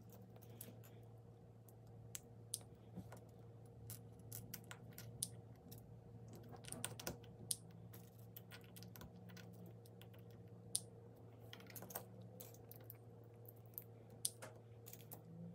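Faint, irregular clicks and taps of small plastic LEGO pieces being handled and pressed together, over a steady low hum.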